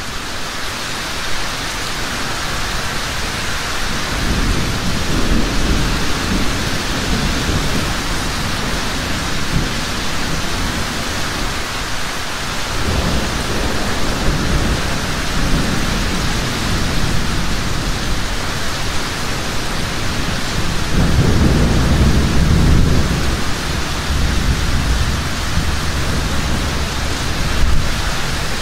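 Heavy rain falling steadily, with rolling thunder: a long rumble from about four seconds in that cuts off suddenly near the middle, and a louder rumble a little past two-thirds of the way through.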